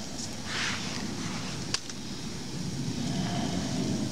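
Stratus Trailstove wood-burning backpacking stove burning sticks under a steaming pot of water that is simmering: a steady low rush of fire and water, with one sharp crackle of burning wood about two seconds in.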